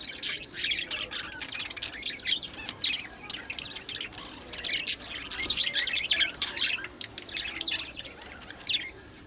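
Many birds chirping and squawking at once, a dense chatter of short overlapping calls that thins out briefly near the end.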